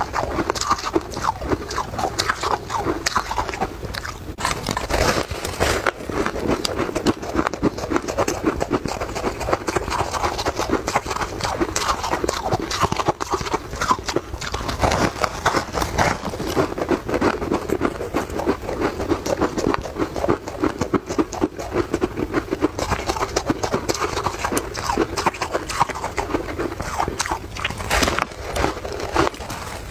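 A person biting and chewing chunks of frozen ice, with continuous close crunching and crackling.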